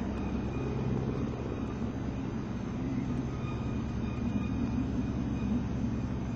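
Stampe-Vertongen SV-4 biplane's piston engine running steadily in flight.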